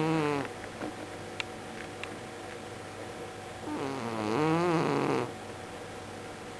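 Domestic cat snoring loudly in its sleep: one snore, wavering in pitch, trails off about half a second in, and another lasting about a second and a half starts just before the four-second mark.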